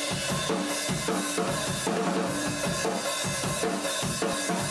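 Opening of a rock song: a drum kit playing a steady beat of kick and snare, with short repeated low notes over it, at a fairly quiet level.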